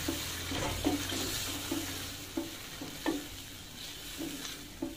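Wooden spoon stirring chicken and chana dal through a sizzling masala in an aluminium karahi: repeated scrapes of the spoon against the pan over a steady frying hiss.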